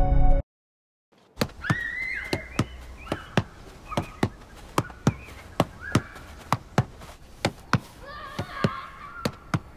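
Music cuts off abruptly, and after a second of silence comes a steady run of sharp clicks, about three a second, with short chirping calls among them.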